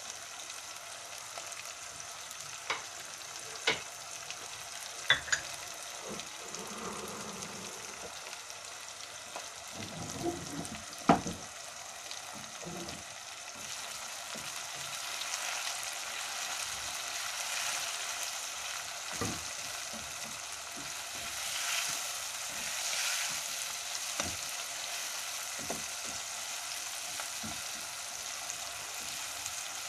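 Onions, tomatoes and spices sizzling in a nonstick wok over a gas flame, stirred and scraped with a spatula. There are a few sharp knocks against the pan in the first dozen seconds, and the stirring grows louder about halfway through.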